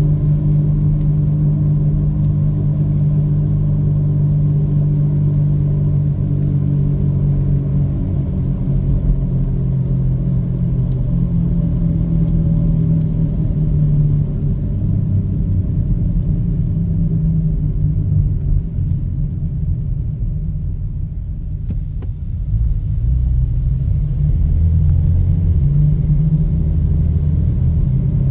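2010 Volkswagen Golf City with a bad bearing: a steady low hum over a rumble, easing off a little about twenty seconds in and then coming back.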